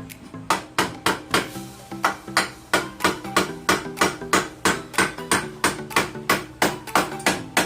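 Background music with a fast, even percussive beat: sharp knocks about three or four times a second over low sustained notes that change in steps.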